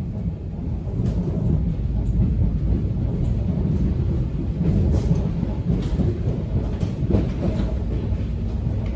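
Subway train running: a steady, heavy low rumble of the wheels on the track, with a few sharp clicks scattered through it.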